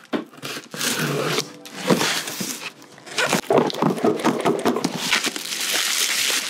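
Packing tape being slit with a plastic Klever Kutter safety box cutter and the shoebox flaps pulled open, with handling knocks, then bubble wrap rustling near the end.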